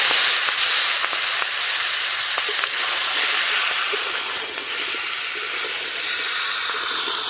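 Freshly washed, wet vegetables sizzling loudly in hot mustard oil in a kadai, with a steady hiss of spitting oil and steam that eases slightly over the seconds. There are a few faint clicks of stirring.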